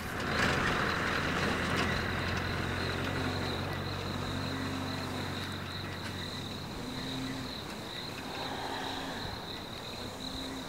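An idling vehicle engine gives a steady low hum that fades after about six seconds, with a steady high-pitched insect trill throughout.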